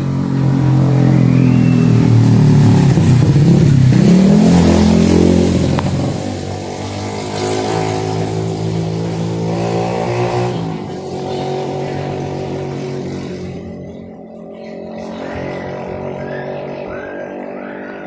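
A motor vehicle's engine passing close by on the road, loudest and sweeping in pitch during the first six seconds, then a fainter steady engine hum that drops away near the end.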